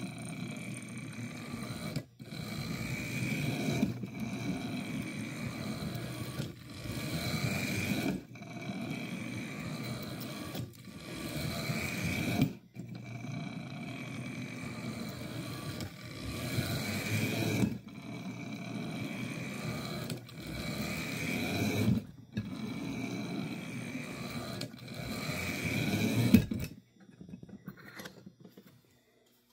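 Tyco Mantua 4-6-2 HO-scale model steam locomotive running along the track, its electric motor and gears whirring with a thin steady whine. The sound swells and drops off sharply every two seconds or so, and stops near the end.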